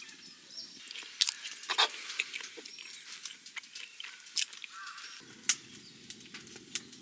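Metal knife and fork clicking and scraping on a metal camp plate while pancakes are cut and eaten, with chewing.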